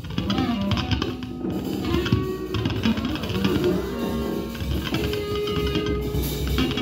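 Loose, improvised live music: electric guitar picking and scraping with a bowed violin drawing long held notes, over scattered drum and cymbal hits.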